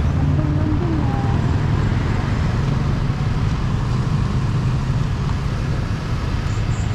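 Small motor scooter engine idling steadily, with road traffic noise around it.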